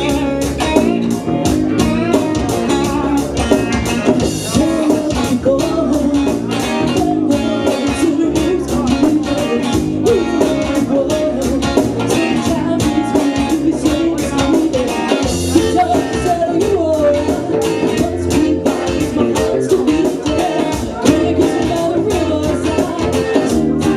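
A rock band playing a blues-rock song, with guitar, a drum kit and a singer.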